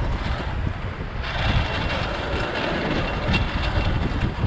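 Inline skate wheels rolling over street asphalt: a steady rumbling hiss with faint clicks, turning brighter about a second in.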